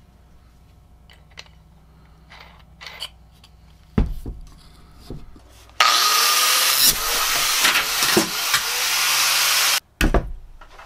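Angle grinder with a thin cutoff wheel cutting through steel flat bar: a loud grinding hiss for about four seconds, the wheel's pitch wavering as it bites, then it stops abruptly. A heavy thump comes before the cut and another just after it.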